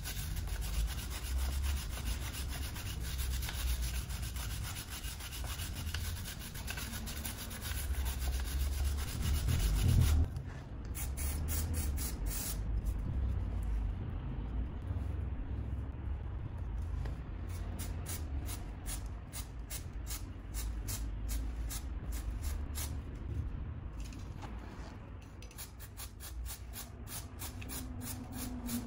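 Stiff plastic chain brush scrubbing a dirty motorcycle drive chain, a steady rasping rub that stops about ten seconds in. A quieter hiss with light ticking follows as chain cleaner is sprayed onto the chain.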